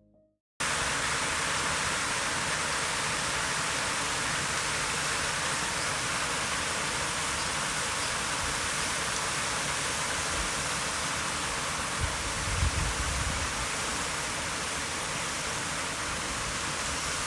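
Strong wind rushing steadily, cutting in abruptly just after a moment of silence, with a brief heavier gust buffeting the microphone about twelve seconds in.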